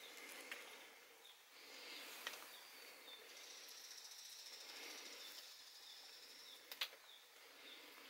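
Near silence with faint outdoor background: short high bird chirps every second or two, and a thin steady high tone for a couple of seconds in the middle. A few soft sharp clicks, the loudest near the end, come as the wired branches of a small azalea bonsai are bent by hand.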